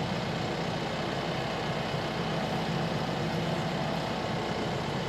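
Tractor engine running steadily at an even pitch.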